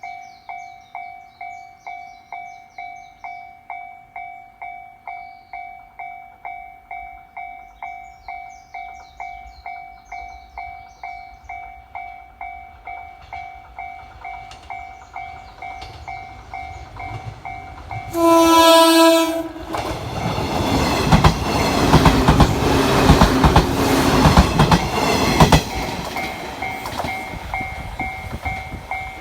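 Japanese level-crossing warning bell dinging steadily, about three strikes every two seconds; about eighteen seconds in, a JR 113 series electric train sounds a loud horn for about a second and a half, then rumbles through with its wheels clacking over the rail joints, drowning the bell, which is heard again near the end.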